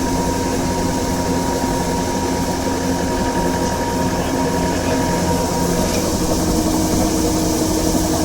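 GAM mini combine harvester running steadily, its engine and threshing machinery making a continuous mechanical sound with a few steady tones. One of the tones shifts higher about five and a half seconds in.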